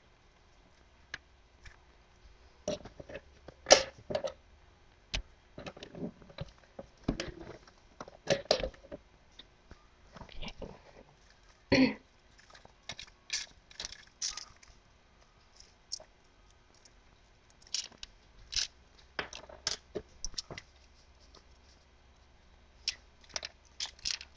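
Scattered crinkles, taps and wet squishes, irregular and short, as hands rub powdered seasoning into raw chicken drumsticks on a foil-lined tray.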